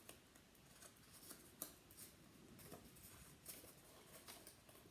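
Faint rustles and soft ticks of paper being handled and folded, the cut tabs of a paper hat brim bent back by hand.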